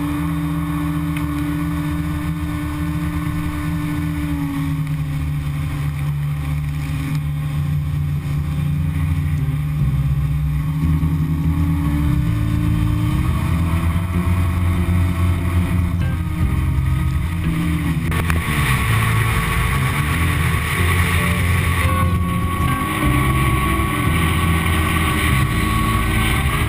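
Jet ski engine running under way, its pitch shifting up and down with the throttle, with the rush of water spray and wind growing louder about two-thirds of the way through.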